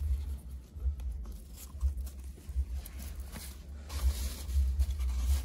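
Rustling and crackling of straw bedding and a foam pad being pushed about by hand, with scattered small crunches over a low, uneven rumble.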